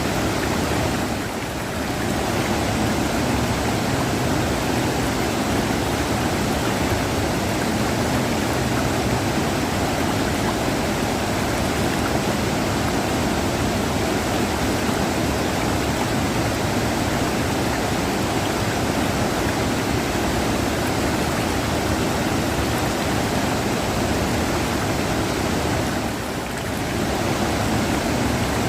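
River water rushing steadily, a continuous full-bodied rush with no break in it; it softens slightly for a moment twice, about a second and a half in and near the end.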